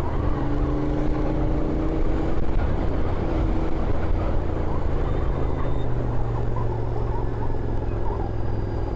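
Royal Enfield Continental GT 650's 648 cc parallel-twin engine running at a fairly steady pitch, with a haze of road and wind noise.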